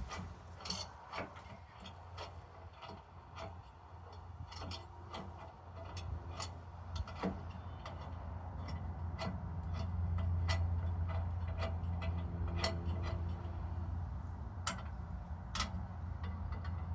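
Irregular metallic clicks and clinks of hand tools working the nuts and bolts of a rear lift kit on a truck's rear axle, over a low steady hum.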